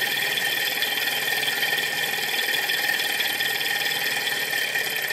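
Miniature flame-heated Stirling engine running at speed: a fast, steady mechanical clatter from its piston, crank and spoked flywheel, with a steady high whine over it.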